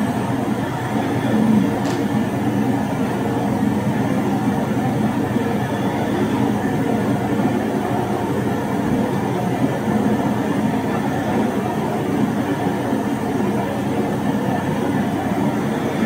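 Steady hiss and low hum of a bedroom sleep recording with no snoring or breathing heard: the sleeper has stopped breathing, an apnea pause.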